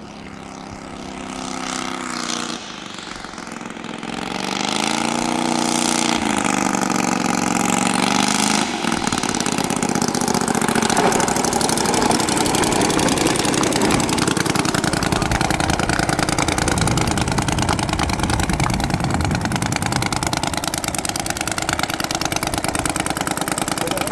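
Kolm 155 engine of a large CARF Spitfire RC model airplane, its pitch rising and falling as the plane flies in, then much louder and rougher from about nine seconds in as the plane rolls along the runway close by.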